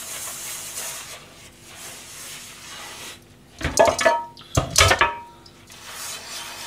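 Metal cookware being washed in a stainless-steel sink: soft scrubbing, then two loud clattering knocks about a second apart past the middle, each leaving a short metallic ring. It is the final wash of a greasy pan used for frying oil.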